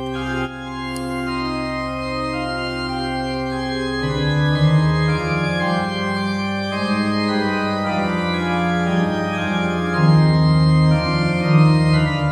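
Slow background music of sustained organ chords, the chord changing about four seconds in and again about ten seconds in.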